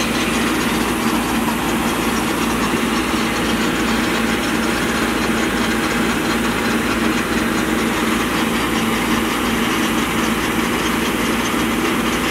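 Ruilong rice combine harvester running steadily: a loud, even mechanical noise with a steady hum. Its unloading auger is emptying harvested paddy into a trolley.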